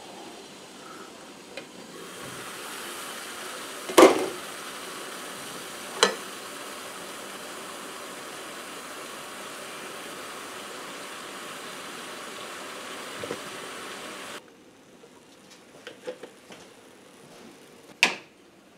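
Steady hiss of a covered square copper pan steaming cabbage on a gas stove, broken by two sharp clanks about four and six seconds in. Past the middle the hiss cuts off suddenly, leaving a few light clinks of the pan being handled.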